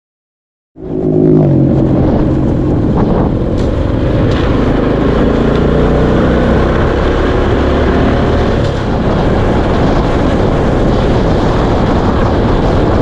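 Motor scooter running along a road, its engine note under heavy wind rush on the camera microphone; the sound cuts in suddenly about a second in and stays steady.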